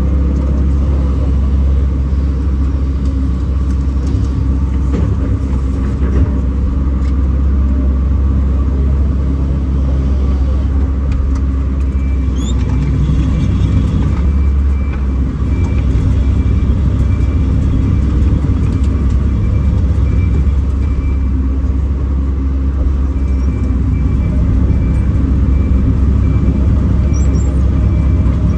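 Kobelco SK210 excavator's diesel engine running steadily as the machine works, a continuous low rumble. About halfway in, a faint high beep starts repeating at an even pace and carries on, with one short break, to near the end.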